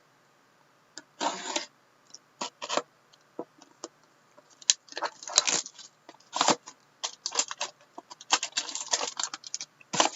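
Trading card box and packaging being handled and opened: irregular rustling, scraping and clicking in short bursts, busiest in the second half.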